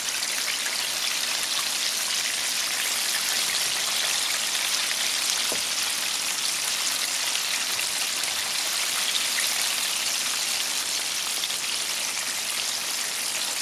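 Coated chicken wings deep-frying in hot oil: a steady crackling sizzle of bubbling oil.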